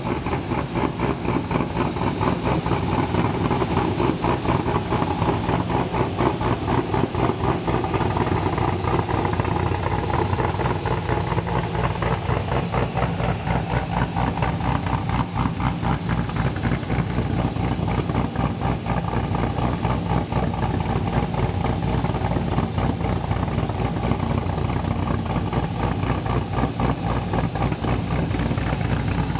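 Camaro Z28 with heads and cam, its 7.0-litre LS7 V8 idling steadily with an even run of exhaust pulses.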